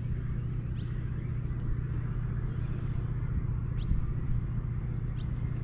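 A steady low engine rumble, with a few short, faint high chirps over it.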